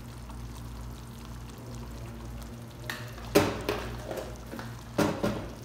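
Tomato-based sauce cooking quietly in a pan over a steady low hum, with a few sharp clinks of a utensil against the pan, the loudest about three and a half seconds in and two more about five seconds in.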